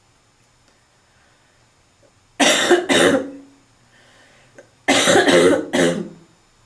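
A person's barking smoker's cough: two harsh coughs, a short pause, then three more in quick succession.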